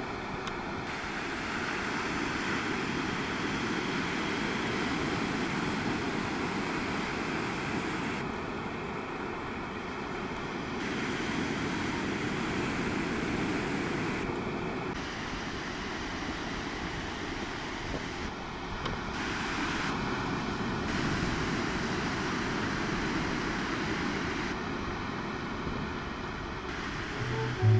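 Ocean surf breaking and washing up a sandy beach: a steady rush of waves that swells and eases gently, with some wind on the microphone.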